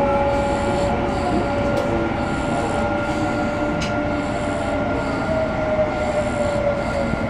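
A moving train heard from inside the carriage: a steady rumble with a sustained whine that slowly falls in pitch.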